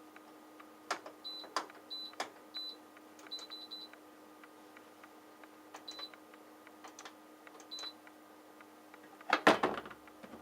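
Control panel of a John Lewis JLTDH15 heat pump tumble dryer: buttons clicking, each press answered by a short high electronic beep, with a quick run of beeps a few seconds in. Near the end comes a louder clatter of plastic parts being handled.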